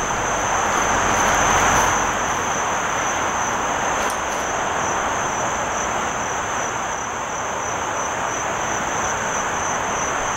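Steady high-pitched buzzing of insects such as crickets, over a broad rushing background drone that swells about a second or two in and then holds steady.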